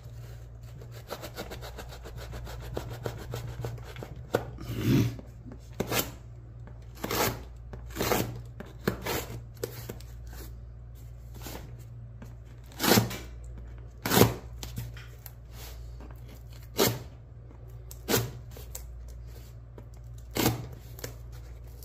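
A cardboard mail package being worked open by hand. Over the first few seconds there is a continuous scraping and rubbing, then a string of sharp, irregular snaps, about one every second or two, as the packaging is cut and pulled apart.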